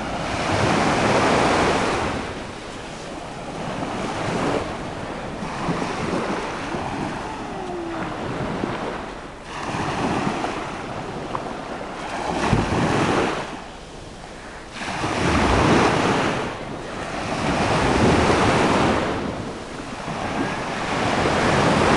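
Small sea waves breaking and washing up a sandy beach, the wash swelling and fading about every three seconds. Wind buffets the microphone now and then.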